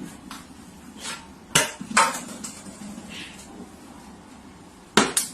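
A few sharp knocks of hard objects striking: two close together about a second and a half in, and two more near the end.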